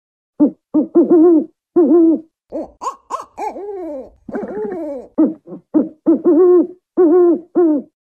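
African wood owl calling: a quick series of short, low hoots, with higher notes that slide downward mixed in around the middle.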